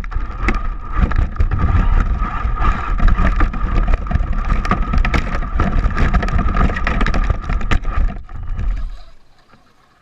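Radio-controlled Slash 4x4 truck driving over desert dirt, its motor giving a steady whine over loud wind rumble on the microphone and a patter of gravel ticks. The sound fades away about a second before the end.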